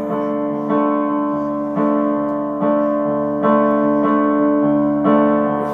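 Instrumental piano music: sustained chords struck about once every second, with no singing.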